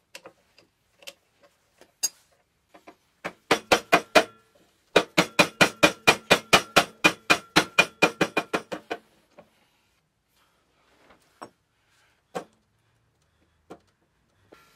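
Hammer blows on the steel front axle of a Simplicity 4040 garden tractor, knocking the wheel spindle loose: a short run of about six blows, then a fast run of about twenty at roughly five a second, each with a metallic ring. Light clicks from handling the parts come before and after.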